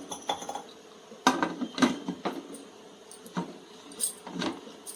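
Metal cookware being handled: a pressure cooker and utensils giving a series of sharp, irregular clinks and knocks, about seven in all.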